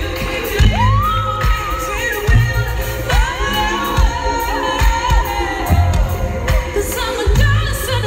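Live pop song in an arena: a woman's amplified lead vocal, with long held and sliding notes, over an electronic backing with heavy, pulsing bass hits, heard from among the audience.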